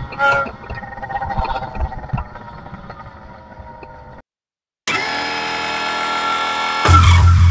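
Small two-stroke engine with a 52 mm one-ring piston and Master Blaster muffler, running under way with its pitch wandering; it cuts off abruptly about four seconds in. After a brief silence a steady droning tone comes in, and near the end a loud, low, throbbing beat takes over.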